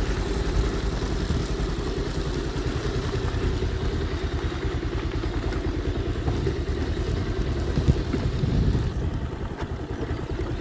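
Tractor engine running steadily with a fast, even chugging.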